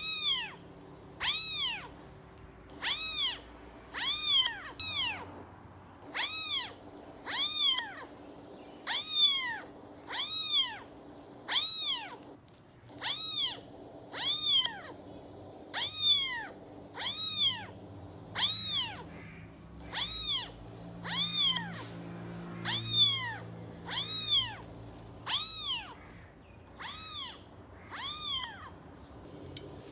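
Kitten meowing over and over: a short, high meow that rises and then falls in pitch, repeated at a steady pace of about one every second and a half.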